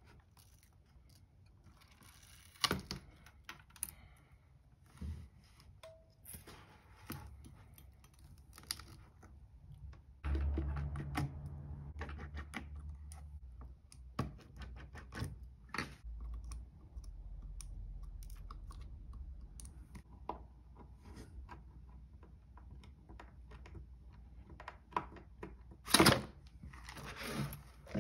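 Scattered clicks, taps and crackles of a cracked iPad Air glass digitizer being pried up off its adhesive and handled. A low rumble of handling starts about ten seconds in, and there is a sharp click near the end.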